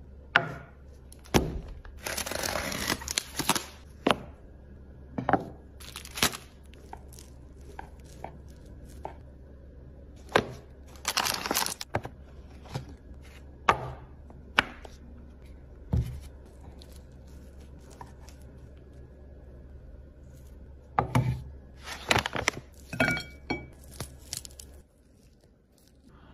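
Food being cut on a cutting board: irregular sharp knife knocks and taps, with a few longer scraping, crinkling strokes about two, eleven and twenty-two seconds in.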